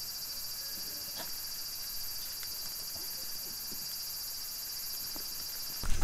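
Steady, high-pitched chorus of summer insects, a rapid pulsing buzz, with a few faint small clicks.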